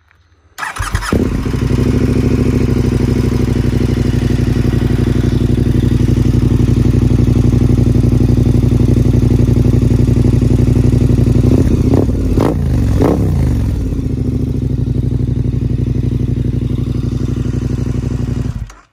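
KTM 1290 Super Adventure R V-twin idling in neutral through a Wings slip-on exhaust with a homemade cat delete. The throttle is blipped twice about twelve seconds in, and the sound cuts off abruptly near the end.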